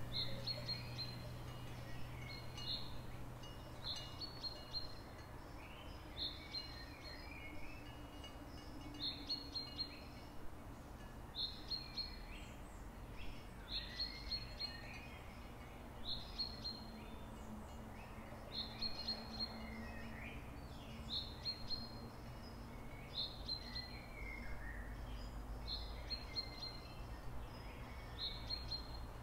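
Songbirds calling: one bird repeats a short high note about once a second while others chirp lower and more irregularly, over a low steady hum.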